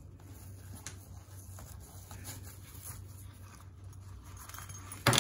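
Rustling of a cloth drawstring microphone pouch being loosened and handled, with a few soft clicks, then one sharp knock near the end.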